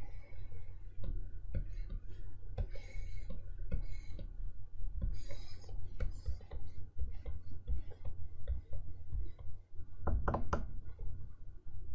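Stylus drawing on the screen of an XP-Pen Artist 15.6 Pro pen display: short scratchy pen strokes and many light taps of the nib, with a couple of louder knocks about ten seconds in. A low steady hum runs underneath.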